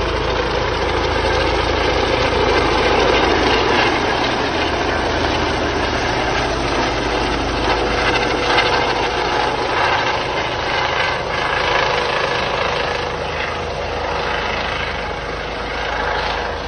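Police helicopter flying low overhead, its rotor and engine noise loud and steady. A steady hum joins in about halfway through.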